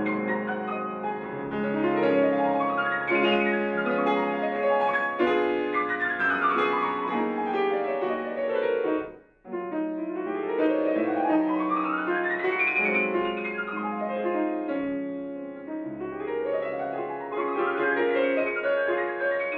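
Grand piano played solo: fast sweeping runs and arpeggios rising and falling across the keyboard, with a brief pause a little over nine seconds in before a long rising run.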